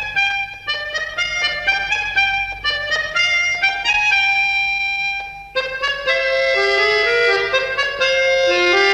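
Instrumental background music: a quick melody of short notes, dipping briefly about five and a half seconds in, then going on with longer held notes.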